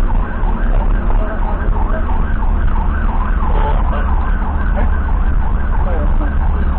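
Emergency vehicle siren yelping in quick rising-and-falling sweeps, about three a second, over the low steady rumble of the vehicle driving.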